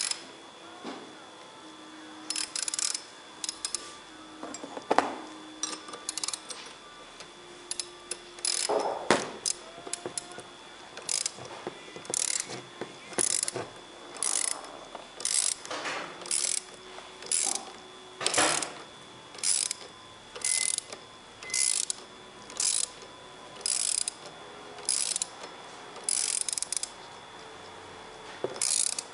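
Ratcheting combination wrench tightening a nut, its pawl clicking in short bursts with each back-stroke. The bursts are scattered at first, then come steadily about once a second through the second half.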